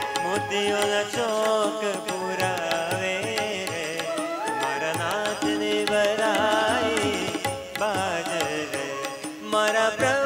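Instrumental interlude of live Indian devotional music: a bamboo flute plays a melody with gliding notes over keyboard and tabla.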